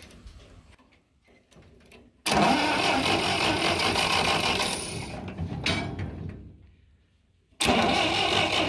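Massey Ferguson 135's four-cylinder spark-ignition engine cranked over by its starter motor without catching, twice: a few seconds of cranking that dies away, then a second crank near the end. It won't start because the ignition points have no gap, so there is no spark.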